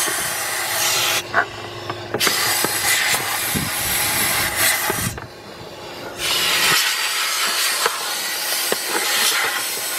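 Compressed-air blow gun with a long nozzle hissing in long blasts, released twice for about a second between them, blowing leaves and debris out of a car's heater housing to clear a clogged drain.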